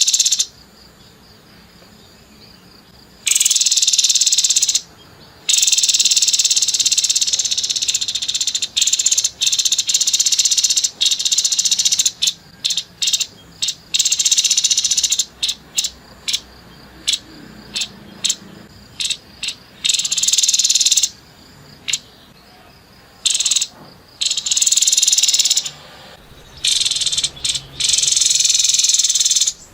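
Grey-headed babbler giving harsh, rasping rattle calls in repeated bursts, some drawn out for a second or two and others broken into quick runs of short sharp notes, with brief pauses between.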